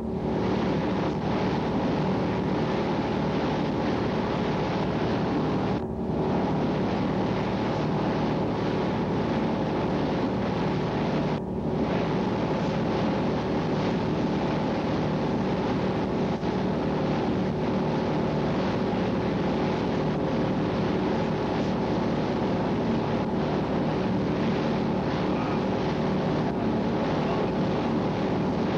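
A boat engine drones steadily, with wind on the microphone. The sound drops out briefly twice, about 6 and 11 seconds in.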